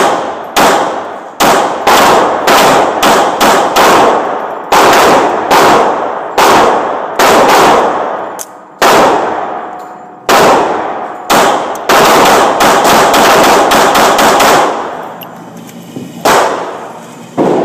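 Pistol shots fired in strings, mostly one to two a second, with a faster flurry in the second half. Each shot is a sharp crack followed by a ringing echo.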